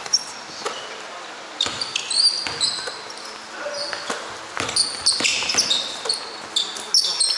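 Basketball bouncing on an indoor court in irregular thuds, with many short high-pitched squeaks from sneakers as players move, busiest in the second half.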